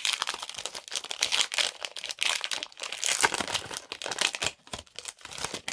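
Foil wrapper of a Pokémon trading card booster pack crinkling and tearing as it is opened: a dense run of crackles that stops suddenly near the end.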